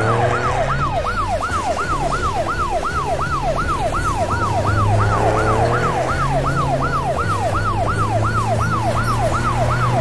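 Police car siren in a fast up-and-down yelp, about three sweeps a second, running steadily over a low hum.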